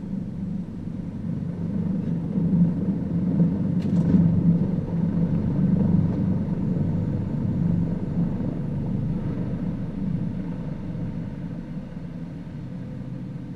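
MH-65D Dolphin helicopter's rotor and engine noise, a steady deep rumble, as it lifts off a ship's flight deck. It grows louder over the first few seconds, then slowly eases as the helicopter climbs away.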